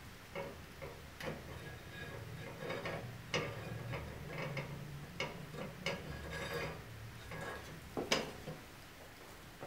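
Footsteps of women's low-heeled shoes on a tiled floor: irregular sharp taps, about one or two a second, the loudest near the end, over a faint low hum.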